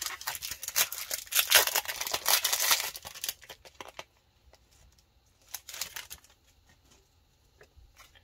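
Pokémon card booster pack's foil wrapper being torn open and crinkled, a dense crackle for about the first three seconds, then a few brief rustles around five to six seconds in.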